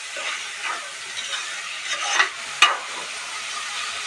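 Steel spoon stirring soaked field beans with tomato and onion in an aluminium pressure cooker, scraping against the pan several times over a steady sizzle of frying; the loudest scrape comes a little past halfway.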